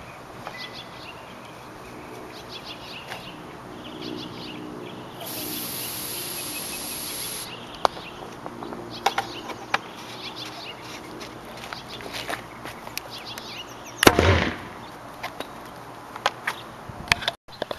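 Aerosol hairspray hissing steadily for about two seconds as fuel is sprayed into a PVC combustion potato cannon, then scattered light clicks. About fourteen seconds in comes one loud, short whoomp as the hairspray-fuelled cannon fires.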